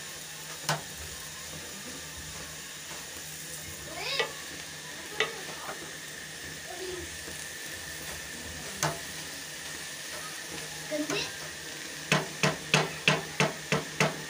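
A wooden spoon stirring fenugreek leaves in an aluminium pot, with a few scattered knocks of the spoon against the pot over a steady hiss. Near the end comes a quick run of about seven knocks, roughly three a second, as the spoon is struck against the pot.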